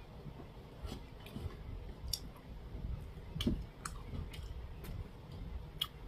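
Faint, irregular small clicks and ticks of a person eating: mouth sounds while chewing food.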